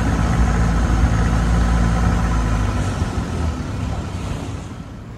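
Long-tail boat engine running steadily while underway, growing quieter over the last second or two.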